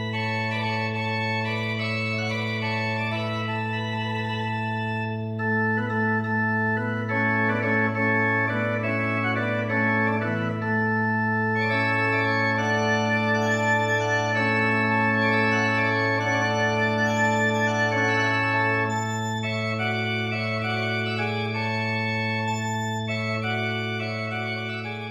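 Baroque pipe organ music from the Arp Schnitger organ: a low pedal note held throughout under sustained chords that shift slowly, with an ornamented, trilling upper line in the middle stretch.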